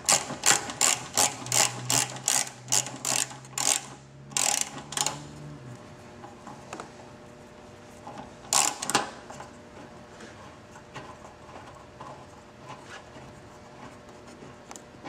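Socket ratchet clicking in an even run of strokes, about three clicks a second, while unscrewing the front gas-tank mounting bolt. The run stops about five seconds in; a brief cluster of clicks follows near nine seconds, then only faint ticks.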